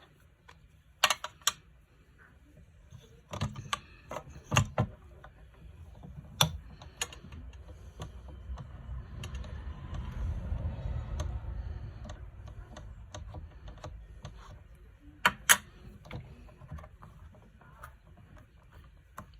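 Ink pad being dabbed onto a stamp in a stamp-positioning tool: scattered sharp plastic clicks and knocks, with a soft, low rubbing noise through the middle stretch.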